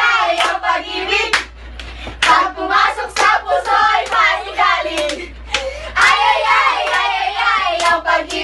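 A group of young women and a boy singing and shouting together, with hand claps.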